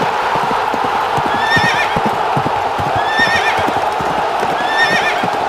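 Horse galloping, with rapid hoofbeats, and whinnying three times, each high wavering whinny about a second and a half after the last.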